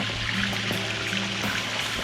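Background music with a low, slowly changing bass line, over a steady hiss.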